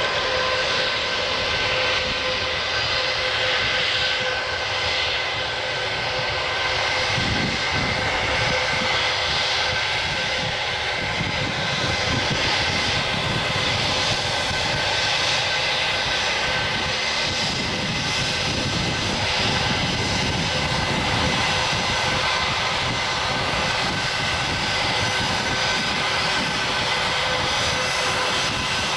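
An Airbus A319 airliner's twin jet engines running steadily at taxi power as the jet taxis past: a continuous whine over a roar, with a low rumble building after several seconds as it draws nearer.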